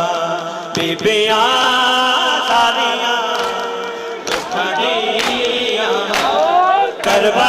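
Men's voices chanting a noha, a Shia lament, in a sung, wavering melody. Sharp slaps of hands on bare chests (matam) land about once a second in the second half.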